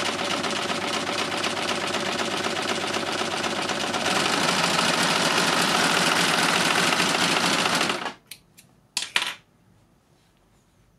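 Success Lucie overlocker stitching a rolled hem, running steadily with dense machine chatter. It gets louder about four seconds in and stops abruptly about eight seconds in, followed by a few sharp clicks.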